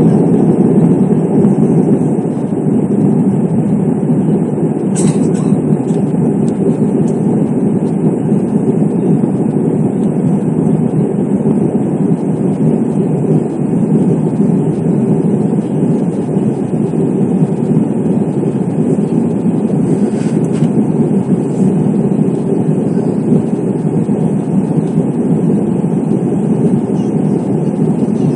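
Steady rumble of an Airbus A320's jet engines and rushing airflow, heard inside the passenger cabin as the airliner climbs after takeoff.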